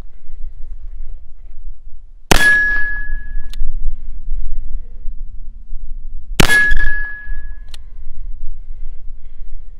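Two shots from an 1861 Remington-Beals .36 caliber cap-and-ball revolver, about four seconds apart. Each shot is followed by a struck steel target ringing with a clear high tone for about a second over a fainter low hum. A light click comes about a second after each shot.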